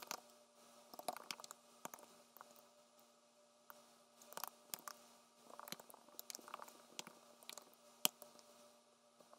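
Faint typing on a computer keyboard: short, irregular runs of key clicks with pauses between, and one louder click near the end, over a faint steady hum.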